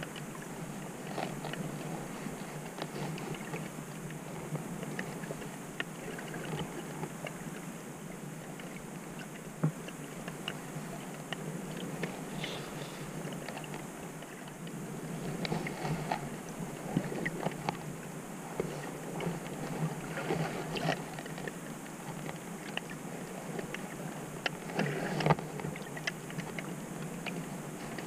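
Underwater ambience over a shallow rocky seabed: a steady muffled hiss of moving water with scattered crackling clicks, swelling a few times, the loudest near the end.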